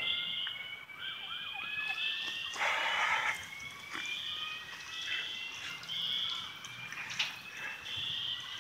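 A high electronic alarm tone pulsing on and off about once a second, over a siren tone that rises slowly in pitch. A short burst of noise about three seconds in.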